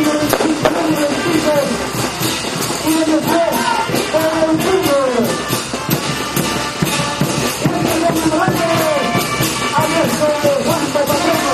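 Lively band music playing for a street dance, with a steady rapid drumbeat under melodic lines that slide down in pitch now and then.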